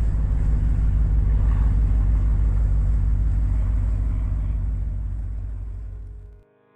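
Steady low rumble of road traffic on a high road bridge, with a fast regular pulse. It fades and cuts off near the end.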